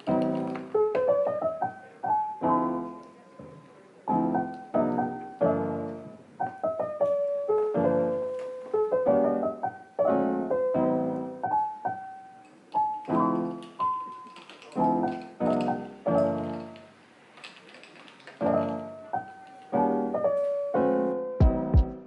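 Background music: a gentle solo piano playing a melody over chords, each note fading away, with a drum beat coming in right at the end.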